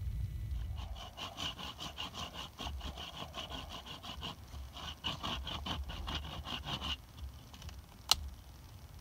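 Knife blade shaving along a wooden stick in fast, repeated scraping strokes, stopping about seven seconds in. A single sharp click follows near the end.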